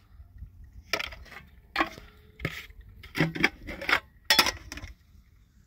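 A series of about six sharp clinks and knocks, spaced unevenly, each ringing briefly, as of hard objects being handled and set down.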